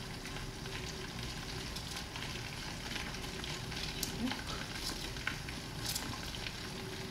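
Food frying in a pan: a steady sizzle with scattered small crackles.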